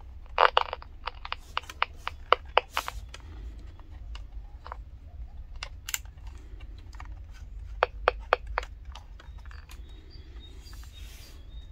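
Irregular sharp clicks and taps of fingers handling a small plastic pocket transistor radio and working its side thumbwheel, over a low steady hum.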